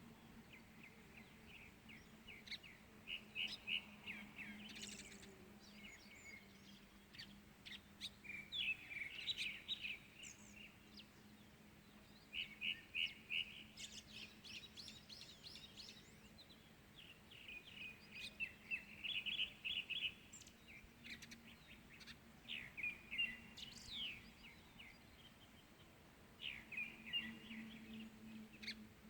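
Songbirds chirping and singing in the early morning, a series of quick chirping phrases every few seconds, over a faint steady low hum.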